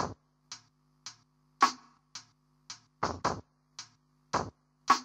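Sparse electronic drum beat: short, sharp hits about twice a second, a few of them doubled, over a faint held low synth note, as the intro of a song.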